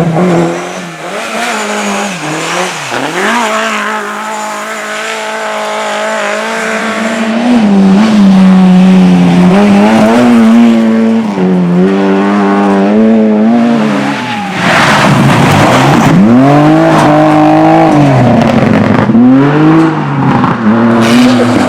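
Race car engine revving hard. Its pitch climbs and drops with gear changes, holds high for several seconds, then rises and falls in several quick arcs in the second half as the throttle is lifted and reapplied.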